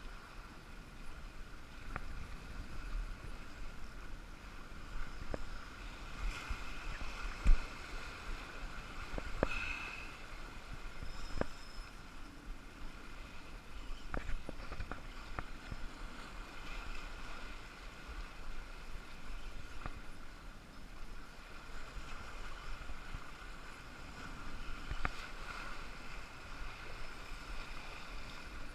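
Water washing at the shoreline with a little wind, broken by scattered sharp clicks and knocks.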